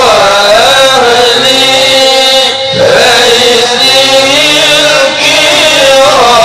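Men chanting Arabic devotional chant into microphones, a single ornamented melodic line with long held and wavering notes, breaking briefly about two and a half seconds in before going on.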